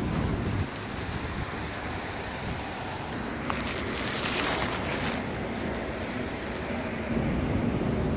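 City street traffic noise, a steady hum of passing cars, with a burst of loud hiss about halfway through that lasts over a second.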